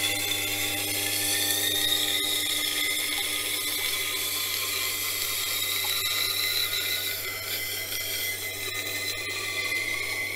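Electric wet grinder running with a steady motor hum while a steel knife blade is drawn along its 400-grit wheel: a high grinding hiss with a whine that drifts slowly up and down in pitch as the blade moves along the stone.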